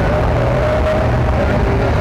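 Sherp ATV's diesel engine and drivetrain running steadily while driving through mud, with a low rumble and a held whine that drops slightly in pitch near the end.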